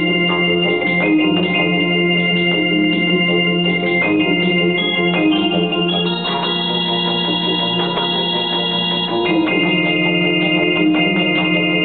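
Yamaha DGX200 portable keyboard playing an instrumental tune in sustained, held chords that change every second or so, with higher notes held for a few seconds in the middle.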